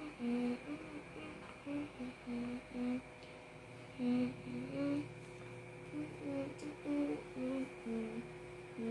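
A woman humming a tune in short held notes that step up and down in pitch.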